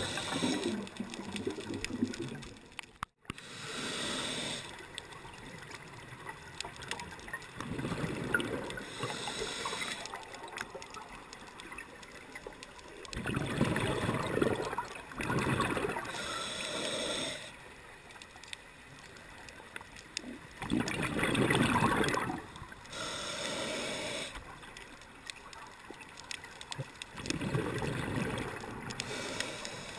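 Scuba regulator breathing heard underwater through a GoPro's waterproof housing: bursts of hissing and bubbling every few seconds, with a faint wash of water between.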